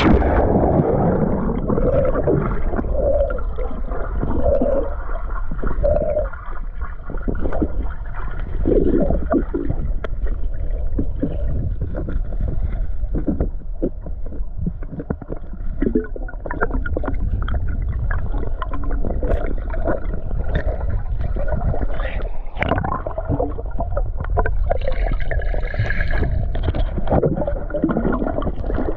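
River current heard underwater through a submerged camera: a steady dull rush and gurgle, with frequent short clicks and ticks throughout.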